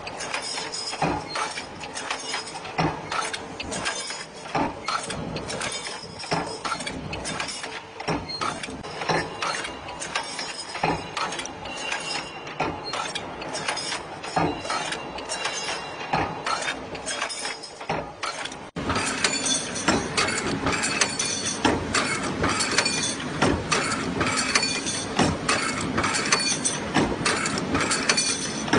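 JH21 pneumatic power press punching steel hinge parts: a running series of sharp metal punch strokes over workshop machine noise. About two-thirds of the way through, the sound steps up abruptly to a louder, busier clatter.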